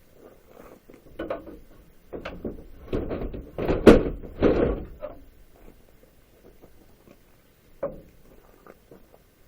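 Wooden pallet boards being worked apart, with knocks and creaks of wood. A cluster comes between about one and five seconds in, loudest near the middle with one sharp crack, and a single knock follows near the end.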